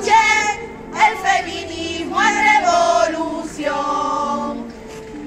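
A group of women singing a protest song together, unaccompanied, in several held phrases with short breaks between them.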